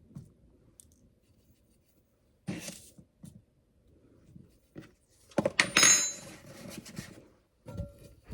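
Kitchen utensils and dishes being handled: a soft rustle about two and a half seconds in, a few light knocks, then a clatter of clinks with a brief ring about five and a half seconds in.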